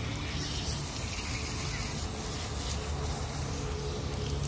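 Water spraying steadily from a hand-held hose at a dog-wash station, rinsing a muddy dog's coat, heard as an even hiss with a low steady hum underneath.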